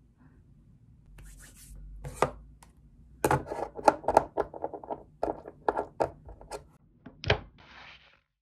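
Tabletop handling noises: a run of sharp clicks and taps as a small glass nail-oil bottle is taken hold of and handled, then a single louder knock as it goes down on the table, followed by a short rustle of tissue.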